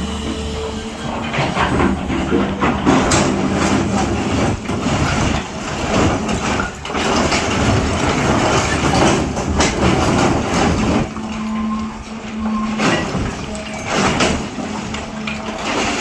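SANY 365H hydraulic excavator working: its diesel engine runs under load amid irregular clanking and scraping.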